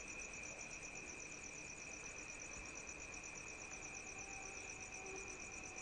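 Crickets chirping steadily at night: a fast, even pulsing trill high up over a continuous high insect tone.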